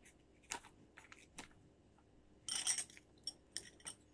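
Small metal pedicure tools being handled: scattered light clicks and clinks, with a short cluster of clinks about two and a half seconds in.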